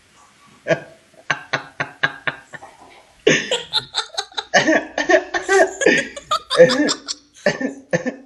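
A man laughing: at first a quick run of short, breathy 'ha' pulses, then fuller and louder laughter from about three seconds in.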